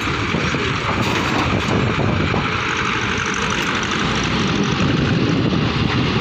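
John Deere 5310 tractor's diesel engine running steadily under power.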